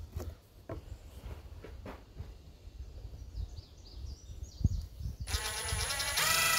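A few light knocks of lumber being shifted into place, then about five seconds in a power drill starts driving a screw into the wood, its motor whine holding a steady pitch and getting louder near the end.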